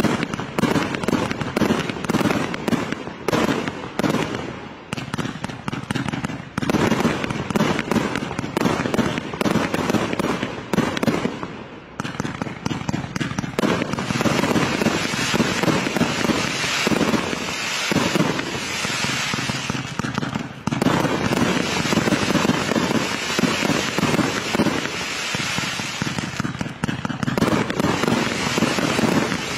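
Fireworks display going off: rapid, overlapping bangs and pops from bursting aerial fireworks, continuing with only a few short lulls.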